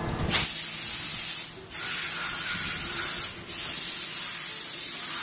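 Loud hiss of a compressed-air jet at a brake pad press, in three long blasts of about a second and a half each with short breaks between.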